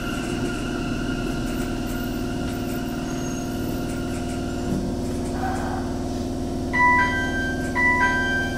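Sendai Subway Tozai Line 2000 series linear-motor train braking into a station. A steady inverter whine over the running rumble dies away about five seconds in as the train comes to a stop. About a second later a two-tone door chime begins and repeats about once a second as the doors open.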